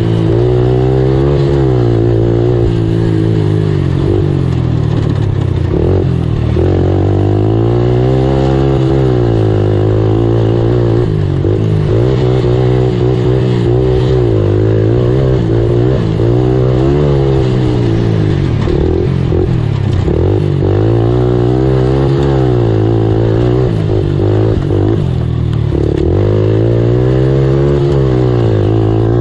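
Race ATV engine revving hard and falling back over and over, its pitch rising and dropping every two seconds or so as the throttle is opened and closed, heard close up from on board the quad.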